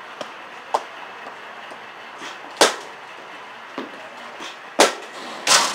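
Softball bat hitting balls: sharp cracks, the two loudest about 2.6 seconds in and two seconds after that, with a few lighter knocks between and a longer, rougher crack near the end.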